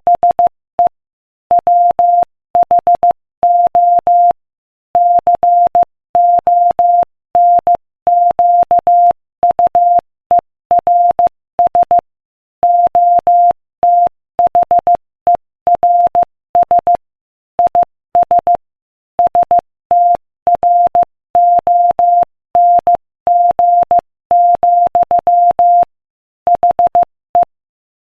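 Morse code sent at 15 words per minute as a single steady beep keyed on and off into short dots and longer dashes, with short gaps between letters and longer pauses between words.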